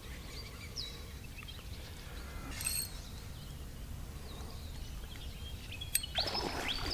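Outdoor ambience: a steady low wind rumble on the microphone, with scattered bird chirps and a couple of sharp clicks.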